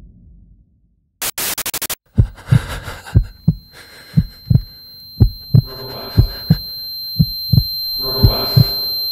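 Horror-film sound design: a heartbeat effect of paired low thumps, about one beat a second, under a high steady ringing tone that starts about three seconds in and a slowly swelling hiss. It is preceded about a second in by a short burst of crackling static.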